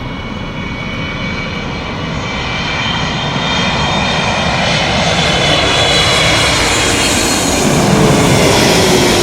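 Jet airliner's engines passing overhead on landing approach: a steady roar that grows louder, with whining tones that slide down in pitch near the end as the aircraft goes by.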